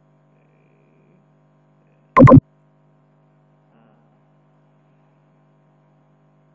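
Faint steady electrical hum, broken once about two seconds in by a single loud, sudden sound lasting about a quarter of a second.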